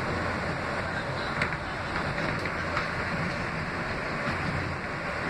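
R160B subway car with Alstom propulsion running at speed, heard from inside the car: a steady rumble of wheels on rail with a few sharp clicks.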